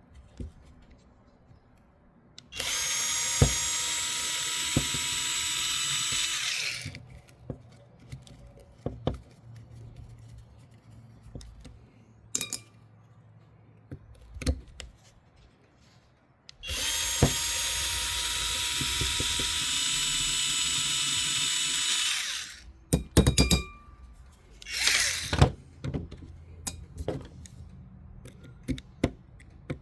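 Small cordless drill driver spinning out the tiny hub bolts of an RC dirt bike wheel. It runs steadily twice, about four and six seconds each, with a short burst near the end and small clicks of bolts and parts being handled in between.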